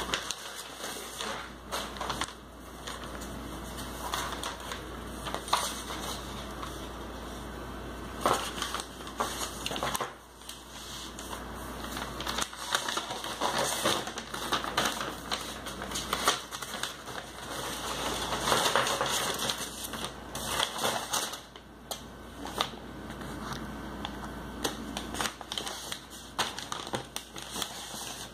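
Newspaper wrapping crinkling and rustling in irregular crackles as hands unfold and pull the sheets away from around books.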